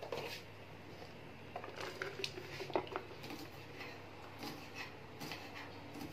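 Cooking oil poured in a thin stream into an empty aluminium cooking pot: a soft patter and splashing, with a few light clicks and knocks, the loudest a little under three seconds in.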